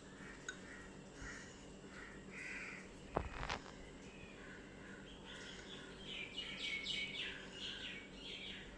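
Faint bird chirps in the background, a quick run of short repeated notes near the end. Two light clicks a little past three seconds in.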